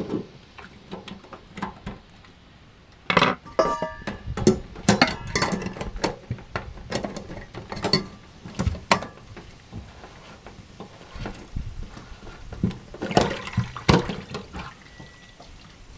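Water running out of a washing machine's drain filter as it is unscrewed, splashing into a steel bowl and onto a towel on the floor. Clinks and knocks of the metal bowl and plastic filter cap come a few seconds in and again near the end.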